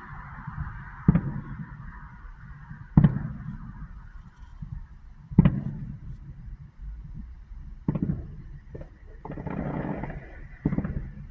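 Aerial firework shells bursting, a sharp bang every two seconds or so, five in all, with a longer rumbling stretch of bursts near the end.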